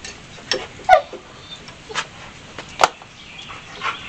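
A few separate metallic clicks and taps of a wrench working the bench-bleed fittings on a cast-iron brake master cylinder held in a vise, with a short falling squeak about a second in.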